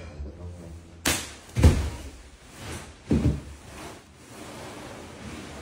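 A few dull thumps and knocks, the loudest about a second and a half in, with another near the middle, amid quiet shuffling; no whistle is blown.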